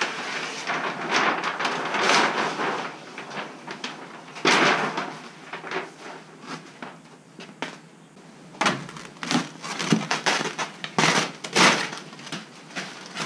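A large sheet of vinyl car-wrap film being handled: irregular crinkling and rustling, with scattered clicks and a few louder crackles.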